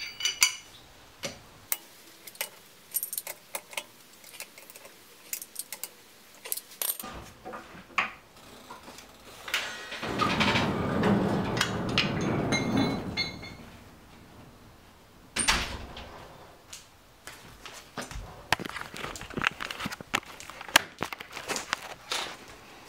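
Intermittent metallic clinks and rattles of a four-way cross lug wrench being worked on tapered wheel nuts. There is a longer rushing noise about ten seconds in and a sharp knock a few seconds after it.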